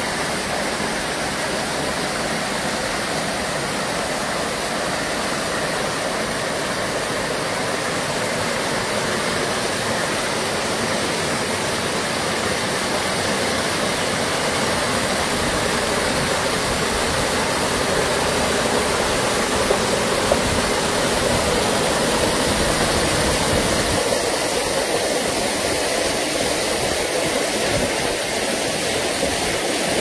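Small mountain waterfall pouring over rock into a pool: a steady, unbroken rush of falling water, a little louder in the second half.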